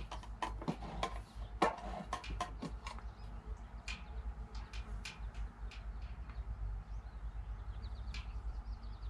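Scattered sharp clicks and light taps, quick and frequent for the first three seconds and sparser afterwards, over a low steady hum.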